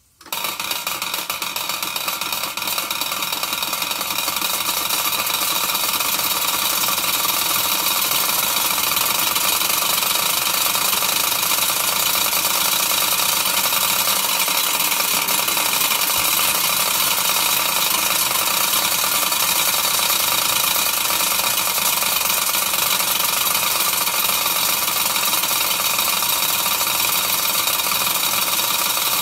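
Wilesco D6 model steam engine, a single oscillating brass cylinder, set going by a flick of the flywheel. It starts suddenly and runs fast with a steady steam hiss and a busy mechanical rattle, growing louder over the first few seconds and then holding steady.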